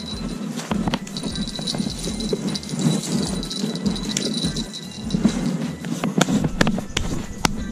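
Rustling and irregular clicking and rattling as a fishing rod with a spinning reel is handled and set down, with a thin steady high-pitched tone in the background.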